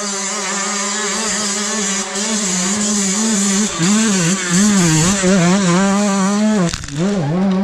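Dirt bike engine working up a steep hill climb, getting louder as it comes closer; from about four seconds in the revs rise and fall quickly as the throttle is worked. A single sharp knock near the end, with a brief dip in the engine sound.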